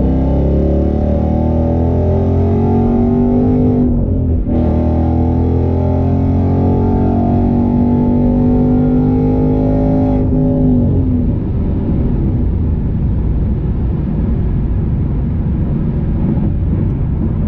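2015 Ford Mustang GT's 5.0-litre V8 under hard acceleration, its pitch climbing steadily, broken briefly about four seconds in by a gear change, then climbing again. About ten seconds in the pitch falls away as the throttle is lifted, leaving the engine running at cruise with road noise.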